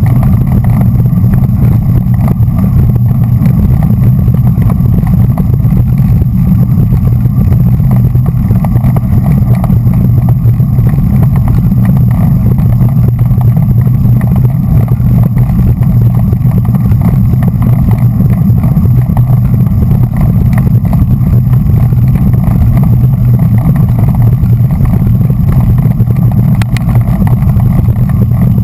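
Loud, steady wind rumble on a bike-mounted GoPro's microphone riding in a bunch of racing road bikes, mixed with road and tyre noise from the concrete surface.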